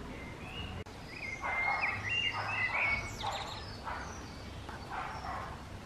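Small birds singing and chirping in a garden, a run of warbling calls loudest between about one and a half and three seconds in, over a faint low rumble.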